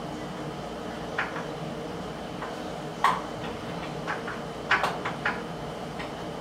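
Scattered light metallic clicks and taps as a bolt is worked by hand into the post of a wooden bunk bed frame: one about a second in, a louder one near three seconds, and a quick cluster between four and five seconds. The bolt is going in off kilter. A steady low hum sits underneath.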